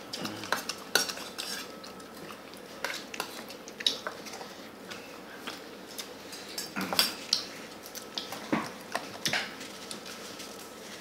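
Metal spoons clinking and scraping against stainless-steel bowls as rice is scooped and served, in scattered, irregular clicks.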